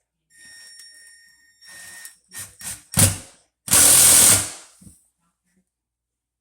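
Power drill driving screws to fasten a loose subfloor: the motor whines for about two seconds, then come a few sharp knocks and a short, loud burst as a screw is driven home.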